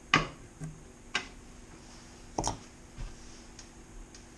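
A few sharp clicks and light knocks from a tape measure being handled against the inside of a wooden cabinet, the loudest just at the start and two more about a second apart.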